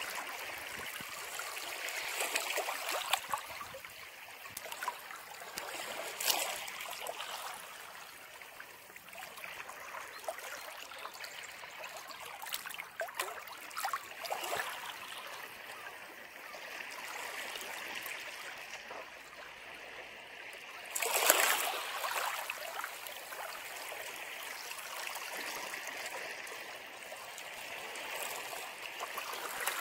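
Sea waves breaking and washing over a rocky shore, swelling and falling in repeated surges, the loudest about two-thirds of the way through.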